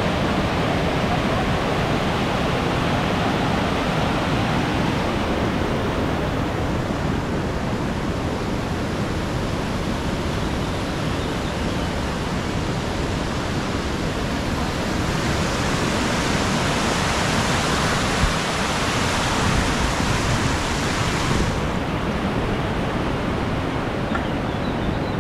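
Steady rushing of falling water from the Krka waterfalls. About fifteen seconds in the hiss grows brighter, then drops back suddenly some six seconds later.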